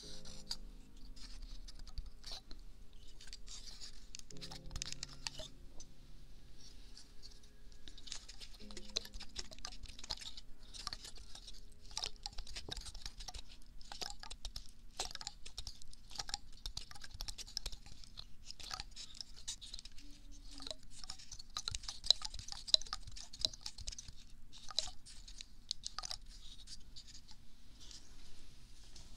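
A pine cone rubbed and scratched against the ear of a binaural microphone, giving a close, dense crackling and scratching made of many small clicks, with a couple of sharper clicks about two-thirds of the way through.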